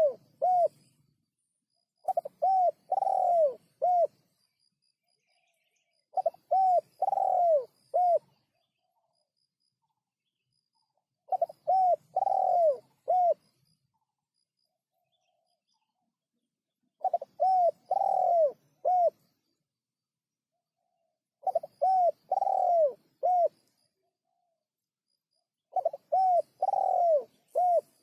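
Spotted dove (terkukur) cooing: a phrase of about four low coos, the third longest and falling in pitch, repeated every four to five seconds, six times over. Faint high chirps sound behind it.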